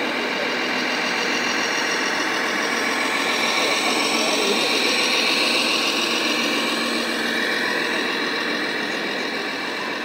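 Simulated diesel engine sound from a radio-controlled Mercedes-Benz Arocs truck's sound module, running steadily as the truck drives past and loudest around the middle. Crowd chatter from a busy exhibition hall underneath.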